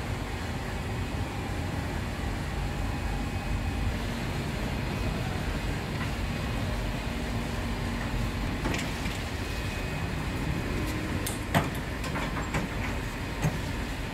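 A wheeled steel bread rack loaded with dough rolled by hand, rattling over a steady low rumble. A few sharp metal knocks come in the last third; the loudest is about two thirds of the way in.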